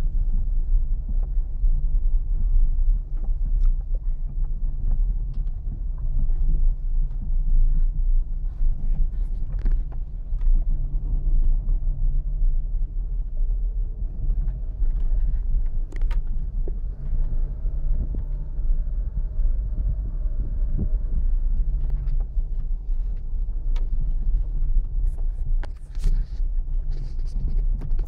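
Renault Logan driving slowly over a rutted dirt road, heard from inside the cabin: a steady low engine drone and road rumble, with a few short knocks scattered through.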